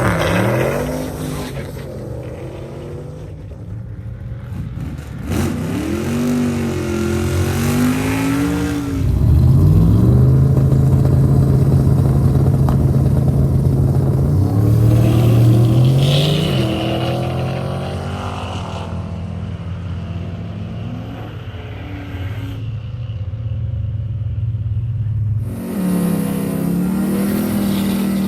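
Car engine running and revving, its pitch rising and falling several times, loudest in a long steady stretch about ten seconds in.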